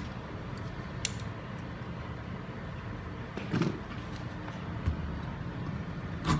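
A few light clicks and knocks of tool handling, about a second in, midway and near the end, over a low steady background hum; the drill is not running.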